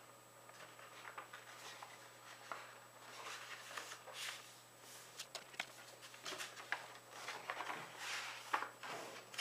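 A sheet of A4 paper being handled and folded by hand: soft rustling swishes as it is slid and creased, with a few small sharp taps, the busiest stretch of swishes coming in the second half.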